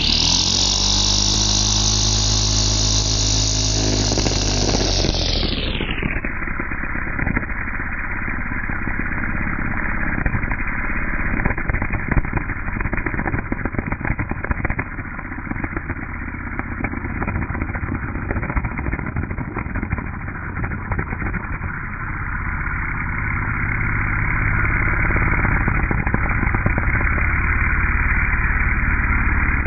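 Toro corded electric string trimmer running steadily as its spinning line shreds a mushroom in the grass. About five seconds in, the sound slows and sinks into a lower, duller whir as the recording goes into slow motion.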